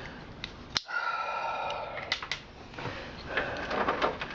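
Small clicks and rattles of hand tools and cables being handled inside a computer case. A sharp click comes a little under a second in, followed by a short high ringing tone, and more light clicking comes near the end.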